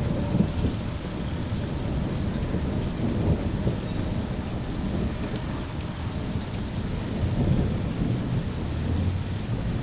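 Thunderstorm noise: wind gusting on the microphone with rain, a steady low rumble that swells a little in the second half.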